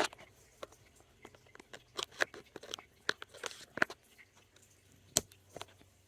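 Irregular light clicks and rustles of a cell phone and its charging cable being handled and plugged into a power station's USB port, with one sharper click about five seconds in.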